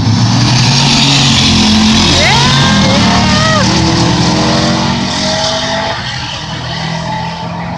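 Turbocharged drag car engine running hard during a pass, fading somewhat after about five seconds in. It is running on 10 psi of boost with a misfire in cylinder 2 caused by a cracked spark plug.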